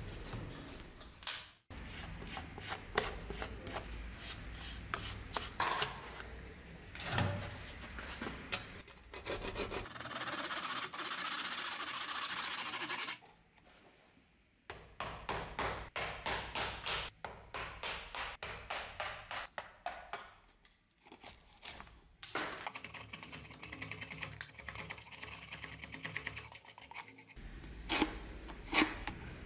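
Steel chisel scraping and paring crumbling, beetle-damaged wood out of an old table rail: runs of short scraping strokes, with a brief lull a little past the middle.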